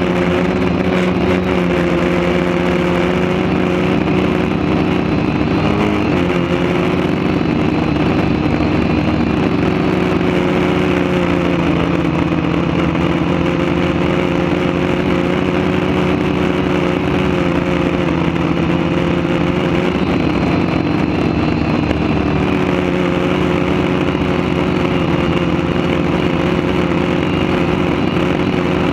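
Quadcopter's electric motors and propellers whirring in a steady hum, heard from the camera on the craft itself. The pitch shifts slightly about six seconds in and again around twenty seconds as the motor speed changes.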